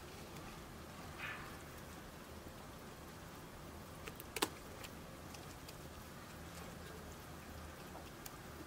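Silicone whisk stirring thick financier batter of egg whites, flour and almond flour in a ceramic bowl, faint, with one sharp click a little over four seconds in.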